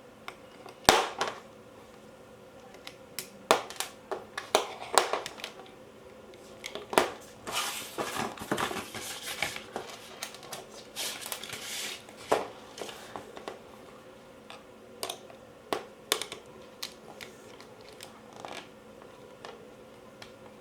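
Parts of a Cyma CM040 airsoft AK being handled during disassembly: scattered sharp clicks and knocks, with a longer stretch of scraping and rustling in the middle. The loudest knock comes about a second in.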